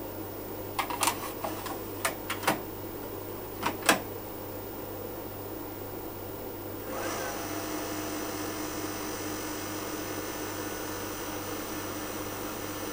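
Several clicks and knocks as a DC600A data cartridge is pushed into a Cipher 5210XT tape streamer and latched, the loudest about four seconds in. About three seconds later the streamer's motor starts and runs steadily with a faint high whine, winding the tape.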